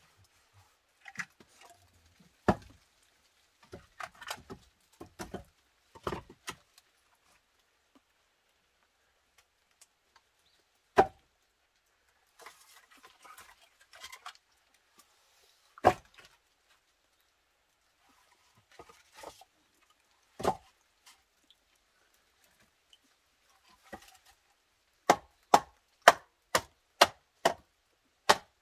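Sharp wooden chopping strikes, scattered at first, then a quick run of about seven blows near the end: firewood being chopped with an axe.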